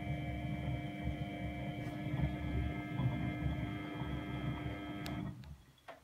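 Miele Novotronic W832 washing machine washing: the drum motor runs with a steady hum over the low rumble of the turning, sudsy load. About five seconds in the motor cuts out with a click and the machine goes quiet as the drum pauses between turns.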